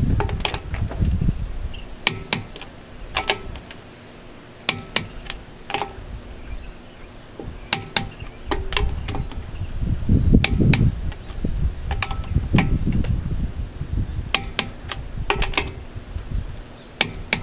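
Click-type torque wrench tightening a trailer wheel's lug nuts to 95 ft-lb, the second of three torque stages: sharp metallic clicks, singly and in pairs, every second or so, from the ratchet and the wrench breaking over at its set torque. Stretches of low rumble come in between.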